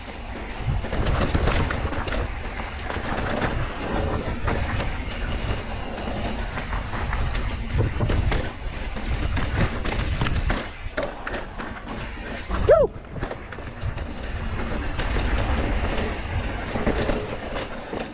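Mountain bike rolling fast down a dirt and rock-slab trail: tyres running over the ground and the bike clattering over bumps, with a heavy low rumble throughout and a short squeal about two-thirds of the way through. A rattle from the rear of the bike comes from a part that has worked loose.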